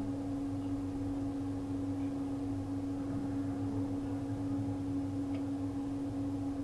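Steady low electrical hum with one constant tone and a faint hiss underneath, unchanging throughout.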